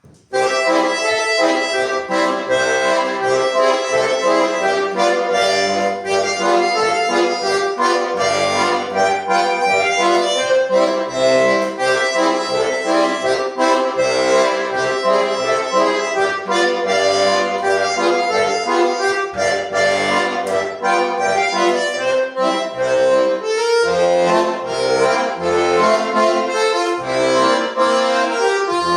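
Solo accordion playing a lively polka, with the melody in the right hand over a left-hand bass note and chord accompaniment that starts about a third of a second in.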